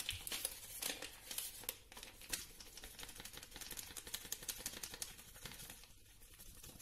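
A paper sachet of ground black pepper being shaken and tapped over a plastic tub: a quick, uneven run of faint light clicks and paper rustles.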